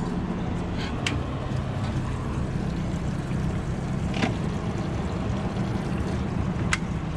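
Yamaha 70 hp four-stroke outboard idling: a quiet, steady low hum. A few faint ticks come through over it.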